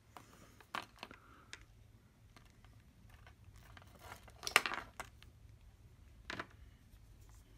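Hands working a plastic soldering-iron housing and its cable, looping the cable inside as a strain-relief knot: small clicks and rustles, with a louder crackle about four and a half seconds in and a shorter one near six and a half seconds.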